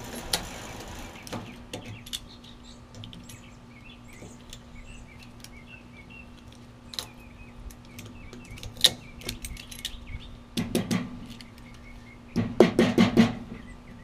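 Hand tools on the rusted steel wheel and axle of a concrete mixer: scattered metal clicks and clinks as the cotter pin and wheel are worked loose, then quick runs of sharp metal taps near the end.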